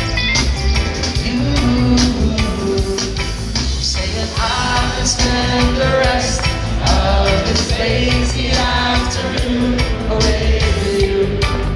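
Live reggae band playing a song: a steady drum and bass groove with electric guitars and keyboards, and a sung vocal line over it, heard from the audience.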